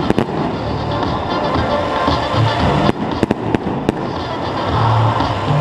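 Aerial fireworks bursting overhead: two sharp bangs at the start and a quick run of four bangs about three seconds in, over continuous music.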